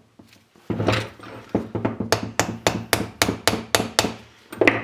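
Quick, even taps on the brake caliper, about four a second, as the rubber piston boot is worked into place; one harder knock comes near the end.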